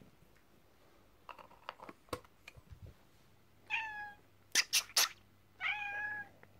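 A black cat on catnip meowing twice, two short calls about two seconds apart. Between the calls come three sharp clicks, and there are a few faint ticks before the first call.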